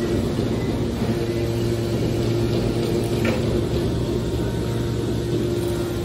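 Hydraulic scrap-metal baler's power unit running with a steady hum, plus one short metallic tick about three seconds in.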